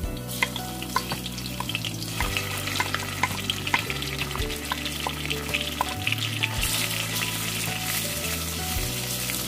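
Ginger and garlic powder frying in hot vegetable oil in a stainless steel pot: a steady sizzle with many small crackling pops. The sizzle gets louder about two-thirds of the way in, and a wooden spoon stirs the pot near the end.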